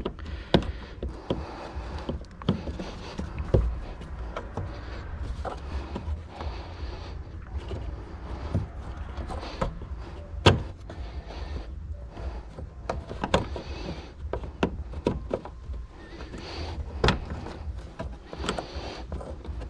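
Irregular clicks, knocks and scrapes of a fuel pump lock ring being pushed and turned against the tank opening to seat it over the pump's spring, with a sharper knock every few seconds.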